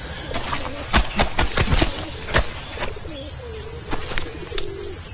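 Several sharp slaps of wet laundry being beaten and handled by hand, the loudest about a second in, over a low wavering tone.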